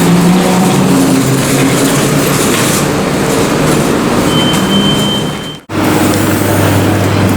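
City street traffic: vehicle engines and tyres running steadily, with a short high whine about four seconds in. Near the end the sound drops out abruptly at a cut and comes back as a steady low engine hum.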